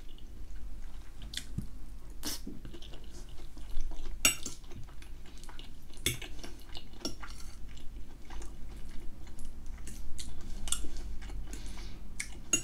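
Close-miked chewing of soft food, ham and potato gratin with peas, with a metal fork clicking and scraping on a ceramic plate in short sharp ticks scattered throughout, the loudest about four and six seconds in.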